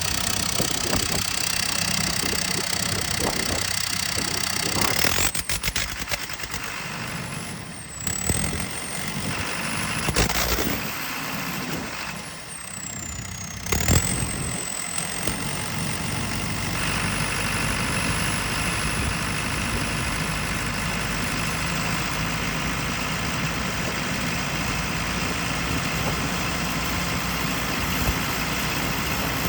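JCB 220's EcoMAX diesel engine running with a misfire. Its sound dips and changes between about five and fourteen seconds in, with a falling high whine twice, then settles into a steady run.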